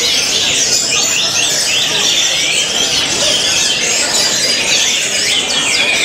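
Orange-headed thrushes singing: a dense, unbroken run of varied, overlapping high warbling phrases.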